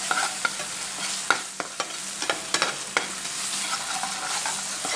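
Onion and tomato-sauce mixture sizzling in a frying pan while a metal slotted spoon stirs it, the spoon scraping and clicking against the pan at irregular intervals over a steady hiss.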